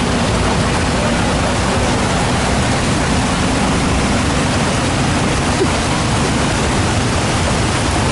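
Steady, loud rushing of water with no break or change.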